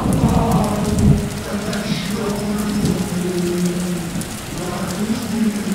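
Rain sound effect with a low thunder rumble about a second in, under a chorus singing an Arabic song in long held notes.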